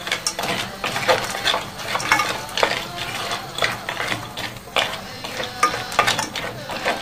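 A spatula stirring green peas around a non-stick frying pan as they fry in oil: irregular scrapes and clicks against the pan, several a second, over a steady sizzle.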